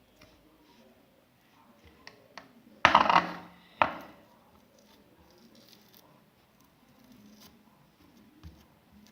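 Metal utensil clattering against a small pan: a loud clatter about three seconds in and a second sharp knock a second later, after a few light taps.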